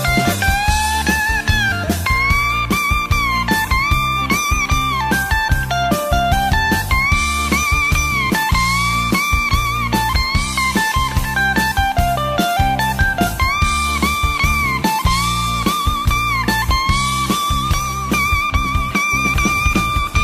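Background music: a bluesy electric guitar melody with bent notes over a steady drum beat.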